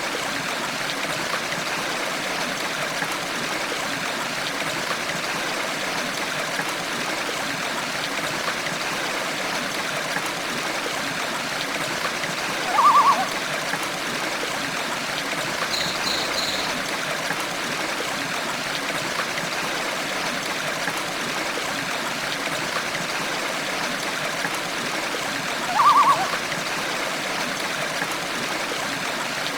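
Steady running water of a stream. A short bird call sounds twice, about halfway through and near the end, and these are the loudest moments; a faint high chirp comes in between.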